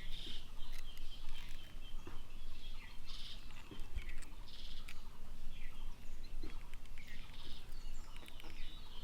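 Birds chirping in short repeated calls, about one a second, over a steady outdoor background hiss.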